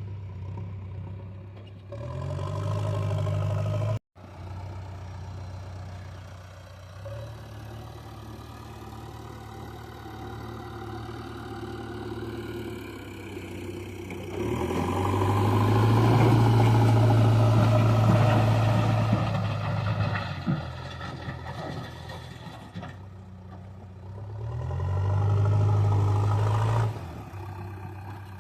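JCB 3DX backhoe loader's diesel engine running and revving up three times, about two seconds in, for several seconds mid-way, and again near the end, as the machine works. The sound cuts out briefly about four seconds in.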